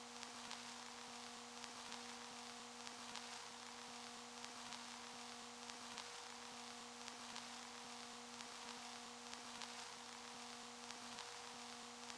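Faint steady low drone, one tone with a few overtones, over a soft hiss with faint scattered clicks.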